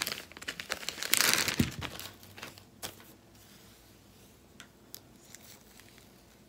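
Clear plastic packaging rustling as a hair bundle is pulled out of it, loudest in the first two seconds, then only a few faint ticks.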